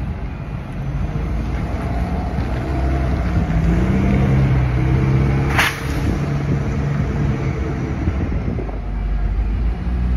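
Alexander Dennis Enviro400 double-decker bus's diesel engine pulling past, its note swelling through the middle and fading away, over steady city traffic rumble. A brief sharp hiss comes about halfway through.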